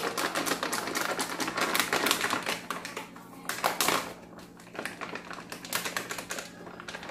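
A plastic bag of glutinous rice flour crinkling and being tapped and shaken as flour is poured from it into a porcelain bowl: a fast, uneven run of small crackles and taps that thins out after about four seconds.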